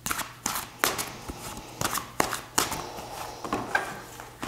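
Tarot cards being handled and drawn from the deck: an irregular run of sharp flicks and taps of card stock.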